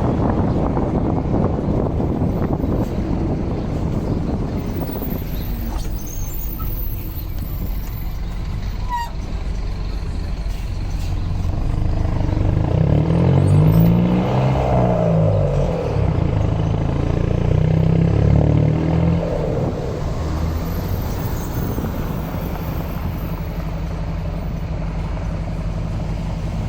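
Diesel engine of a Mercedes-Benz LO 916 bus, the four-cylinder OM924LA, running. It revs up and back down twice around the middle, then settles into a steady idle near the end.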